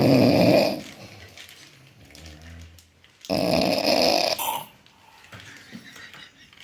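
A person snoring: a loud snore fades out just under a second in, and after a quiet breath a second loud snore, about a second long, comes about three seconds in.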